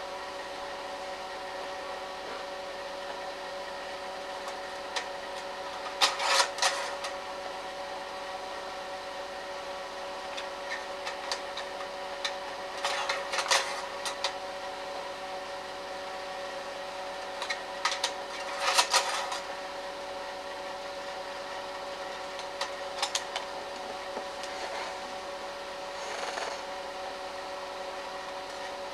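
Home movie projector running: a steady motor-and-fan whirr with a mechanical hum, broken three times by short bursts of clicking and clatter.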